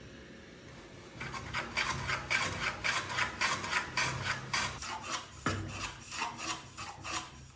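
An abrasive hand tool worked back and forth on wood in quick, even rasping strokes, about three a second, starting about a second in and stopping near the end.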